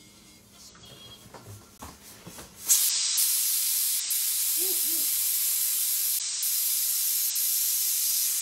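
Pressure cooker venting steam under pressure: a loud, steady hiss that starts suddenly about three seconds in and stops abruptly near the end.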